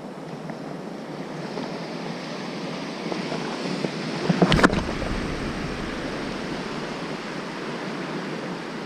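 Surf washing onto a sandy beach with wind buffeting the microphone. About halfway through there is a short, sudden burst of knocks and rushing air as a surf-casting rod is swung through a cast.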